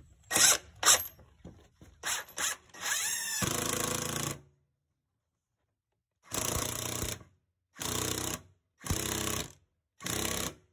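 Power drill driving a soap-lubricated lag screw into a log leg, with a few clicks at first, then a run of about a second that spins up three seconds in, and after a pause four short trigger bursts as the screw is snugged down into its countersink.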